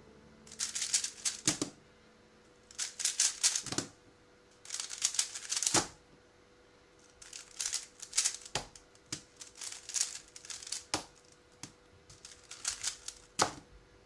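MoYu Weilong WR M 3x3 speedcube being turned fast, in about six bursts of rapid clacking turns, each about a second long, with short pauses between.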